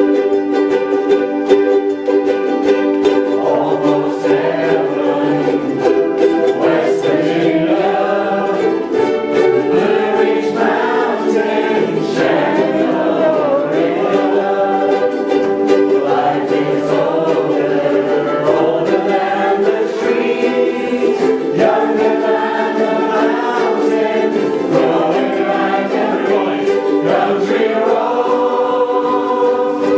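A ukulele ensemble strumming a song together, with a group of voices singing along from a few seconds in.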